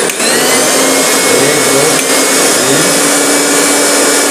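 A Fabiano 500-watt mixer grinder motor running loudly with an empty jar, a steady high motor whine. The whine dips for a moment just after the start and picks back up as the speed knob is turned.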